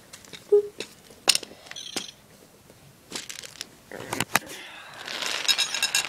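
Scattered light clicks and knocks of small plastic toy figures being handled and knocked together, with a short rustling, clinking patch near the end.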